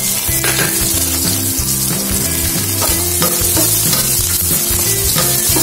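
Ginger, garlic and green chillies sizzling in hot coconut oil in a stainless steel pot, with a spoon scraping and stirring through them.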